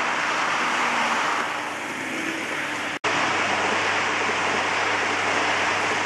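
Model train cars rolling along the layout's track, a steady rush of wheel noise, with a brief dropout about three seconds in.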